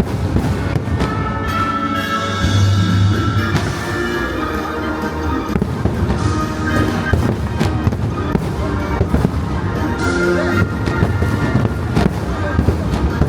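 Fireworks bursting in rapid, repeated bangs over a loud music soundtrack.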